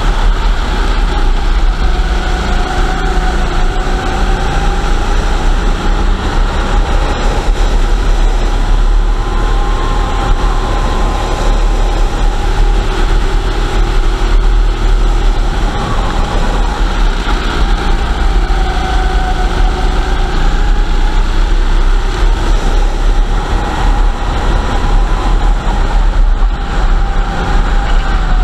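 Racing kart engine running hard on track, heard close up from the kart itself, its pitch rising and falling gently as it accelerates out of and slows for the corners.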